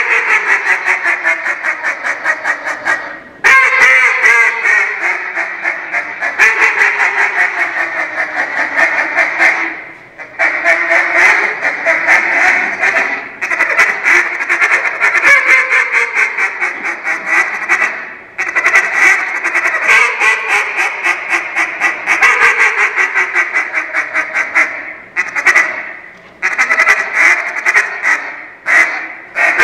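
Competition duck call, custom made by JJ Lares, blown in a realism routine: long strings of rapid, loud quacks, many strings falling in pitch, broken by short pauses every few seconds.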